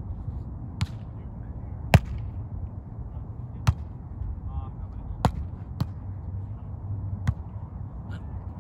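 Beach volleyball rally: a volleyball being struck by players' hands and forearms, about six sharp slaps at uneven gaps, the loudest about two seconds in, over a steady low rumble.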